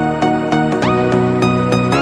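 Background music: an instrumental passage of a pop song with a steady beat and sustained synth notes.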